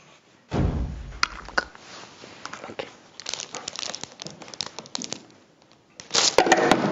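Wrapping paper and a small box being handled carefully, crinkling and crackling with scattered clicks. There is a dull thump about half a second in, and the crinkling gets loudest about six seconds in.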